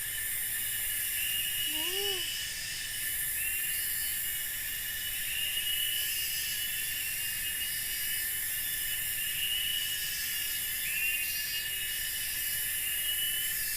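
Forest ambience dominated by a dense insect chorus: a steady high buzz with layered pulsing hiss and repeated short chirping calls.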